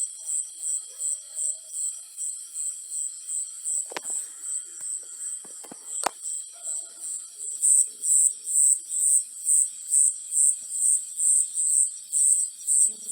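An insect chirping in a steady high-pitched pulse, about three chirps a second, growing louder about halfway through. Two sharp clicks stand out near the middle.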